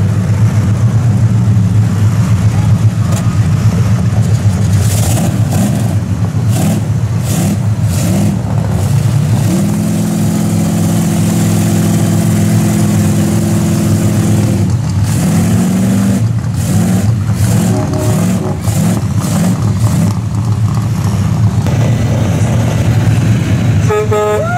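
Heavy engines running hard as a pickup truck stuck in deep mud is towed out by a wheel loader. About ten seconds in, one engine is held at steady high revs for several seconds, then its revs climb and waver.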